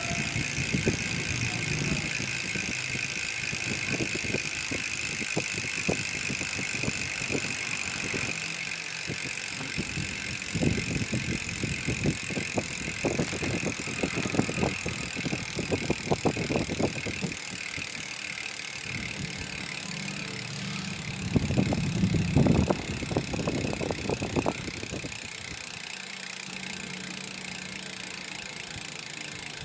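Freehub pawls of a SRAM X9 bicycle rear hub clicking as the wheel spins, in uneven bursts of ticks with the loudest stretch about three-quarters of the way through, over a steady hiss.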